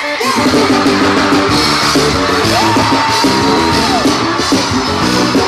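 Live band playing amplified gospel praise music, with keyboard and drums over a steady beat; a long held note sounds near the middle.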